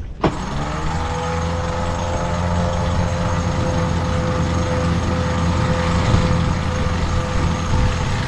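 Electric sheet winch hauling in the genoa sheet. After a click, the motor runs up to a steady pitch and keeps running under load, with a low hum beneath, stopping near the end.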